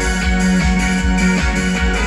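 Live band playing with electric guitars, bass and drums, loud through a festival PA and recorded from within the crowd.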